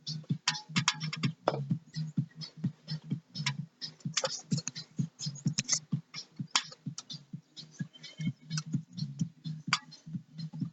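Irregular clicks and clinks of hand tools and metal engine parts being handled during a jet ski engine teardown, over a low steady hum.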